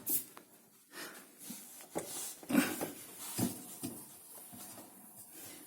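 Samsung EcoBubble washing machine creaking, a string of short irregular squeaks about once a second. The creak comes from the drive belt's idler pulley and tensioner.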